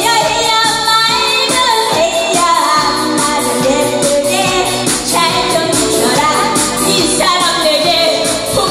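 A woman singing a Korean popular song through a handheld microphone, over backing music.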